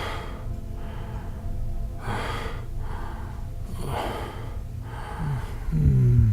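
A man gasping for breath three times, about two seconds apart, then a low voice sliding in pitch near the end.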